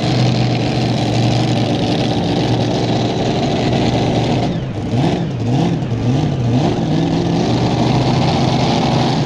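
Mini rod pulling tractor's engine running at a steady high pitch. About four and a half seconds in it eases off, then revs up and down in repeated throttle blips.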